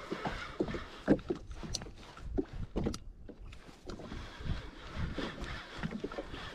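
Irregular knocks, thumps and clicks with splashy noise on board a Sea-Doo Fish Pro jet ski while fishing, with no steady engine sound.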